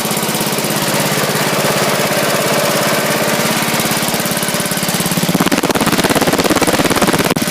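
A lawn mower's 8 hp Briggs & Stratton single-cylinder engine runs steadily just after a cold start. Its note shifts and grows a little louder about five seconds in.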